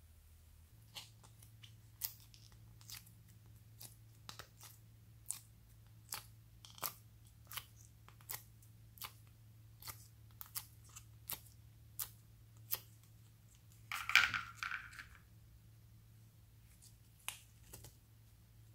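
Sticky slime clicking and popping as fingers pull it out of the wells of a plastic palette tray, a short sharp pop about every three-quarters of a second. About fourteen seconds in comes a louder, brief crackling squish.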